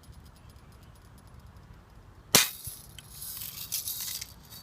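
A Red Ryder lever-action BB gun firing once, a single sharp snap about halfway through. No BB came out of the gun on this shot.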